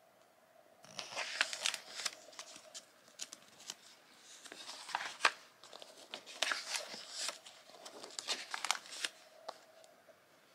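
Glossy magazine pages being turned and handled, starting about a second in: paper rustling and crinkling in uneven bursts, with sharp clicks.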